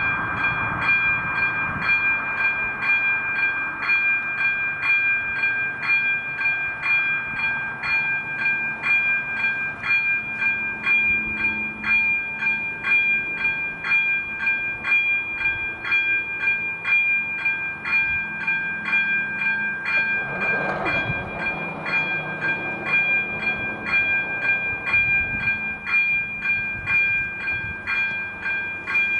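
Level crossing warning bell ringing steadily, about two strikes a second, over a low rumble. Briefly, about twenty seconds in, a passing noise swells.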